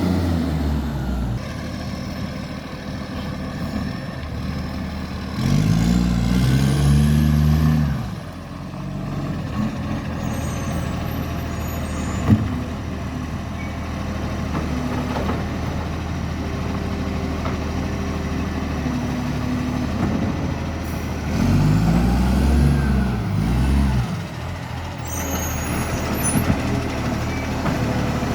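Garbage truck engine with a very bad exhaust leak, running and twice revving up hard for a few seconds before dropping back. There is a single sharp knock about halfway through.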